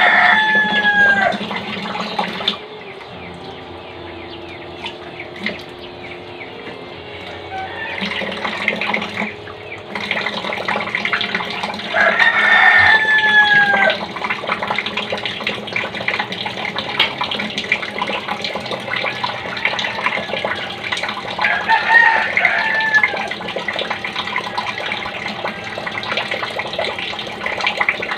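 Water running from a tap with splashing as hands are washed with soap under it. A rooster crows three times in the background: once at the start, once about halfway through and once more later.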